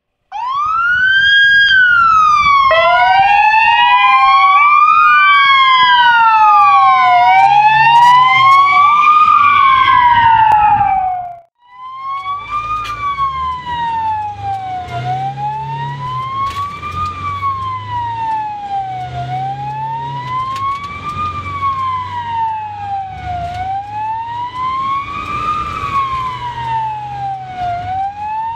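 Two Hungarian ambulance sirens wailing together, rising and falling out of step. They break off about eleven seconds in, and then a single siren wails slowly up and down, about four seconds to a cycle, heard from inside the ambulance cab over its engine and road noise.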